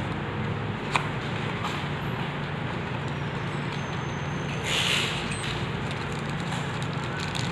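Cardboard box and plastic wrap being handled as a boxed phone screen is slid out: a sharp tap about a second in and a brief rustle a little after the middle, over a steady background hum and hiss.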